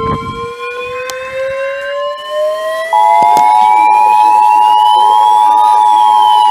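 Emergency Alert System broadcast tones. A steady 1050 Hz NOAA Weather Radio warning tone sounds for about three seconds, then switches abruptly to the much louder two-tone EAS attention signal, which signals an incoming warning. Under the tones a siren wails slowly up in pitch and starts to fall again near the end.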